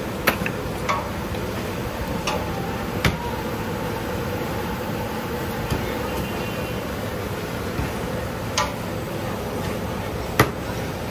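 Sharp, irregular metallic knocks and taps, about seven in all, from dough, hands and a knife working on a stainless steel worktable, over a steady background hiss of the stall.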